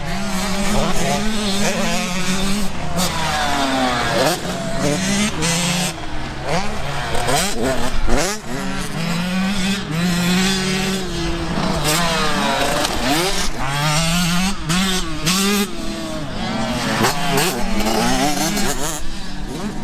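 Several motocross dirt bikes riding a dirt track at once. Their overlapping engine notes keep rising and falling as the riders accelerate, shift and ease off for the corners.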